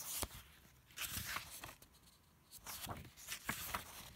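Stiff photobook pages being handled and turned, with paper rustling in about three short spells.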